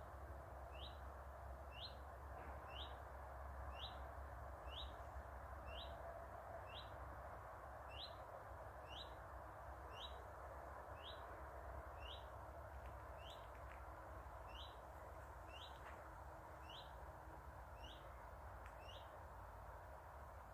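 A small unseen bird whistling one short, upward-sliding note over and over, about once a second, in a monotonous unchanging series.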